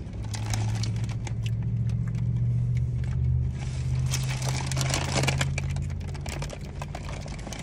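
Crinkling and rustling of a foil burrito wrapper and paper takeout bag being handled, in short scattered crackles. Under it, a steady low vehicle hum that fades away near the end.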